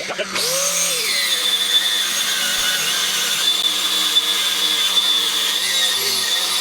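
Stick-welding arc as a 7018 rod lays a weld bead along an anvil edge, starting just after the beginning and holding steady as an even hiss with a thin high whine.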